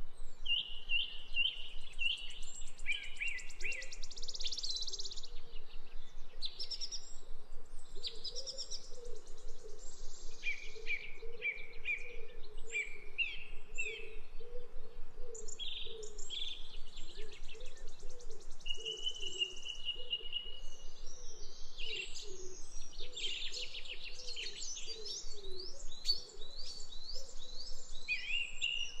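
Small birds chirping and calling without a break: rapid runs of short high chirps and trills, with a lower, softer note repeating steadily underneath.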